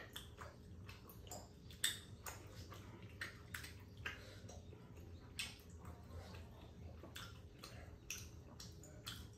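Eating sounds at a table: scattered, irregular clicks and mouth smacks of chewing, with thin metal chopsticks tapping against a pan of tteokbokki.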